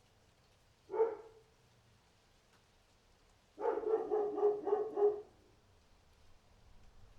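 Dog barking: a single bark about a second in, then a quick run of about six barks.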